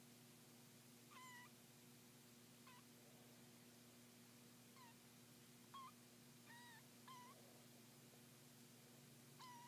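Three-week-old kittens mewing faintly: about seven short, high cries scattered through, some dipping and rising in pitch. A steady low hum runs underneath.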